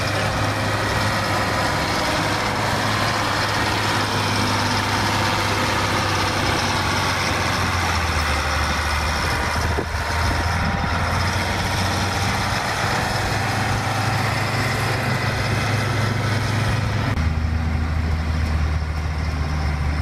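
Caterpillar 12G motor grader's diesel engine running under load, a steady low drone with mechanical noise over it. The pitch of the drone shifts about eight seconds in and again about seventeen seconds in.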